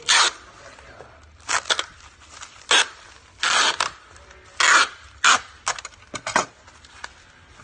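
Packing tape pulled off a hand tape dispenser, about ten short, sharp tearing rips of varying length, irregularly spaced, as a parcel is taped up.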